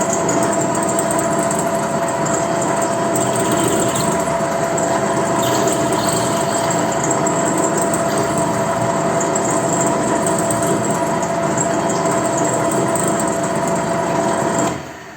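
A small electric power tool's motor running at a steady, constant speed with a high, even whine, then switching off near the end.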